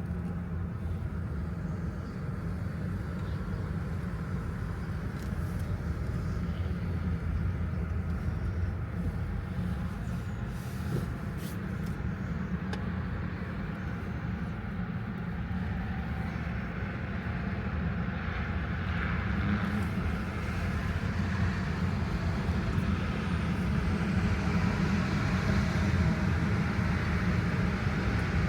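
Steady road and engine noise of a vehicle driving: a continuous low rumble that grows somewhat louder in the last third.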